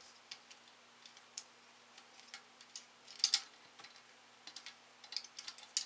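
Scattered small clicks and ticks of hands handling and pulling apart a water pump's pressure switch, its metal and plastic parts knocking together, with a louder cluster of clicks a little past three seconds in. A faint steady low hum lies underneath.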